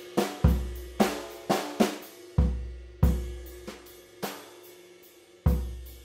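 Electronic music: a sparse programmed drum beat of sharp snare and hi-hat hits, with three deep kick drums whose low tone dies away slowly, over a faint held tone.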